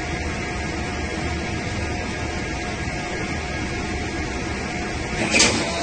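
Steady low hum and hiss of an ATM standing by during a withdrawal, with a faint steady tone. A short burst of mechanical noise comes near the end.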